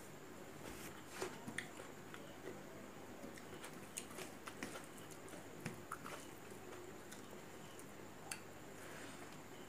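Close-miked chewing of a mouthful of rice eaten by hand, with scattered small clicks of the mouth and fingers over a faint steady background hum.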